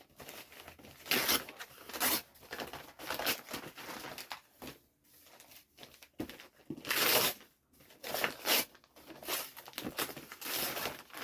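Gift wrapping being torn open and crinkled by hand in a series of irregular rips, the loudest about seven seconds in.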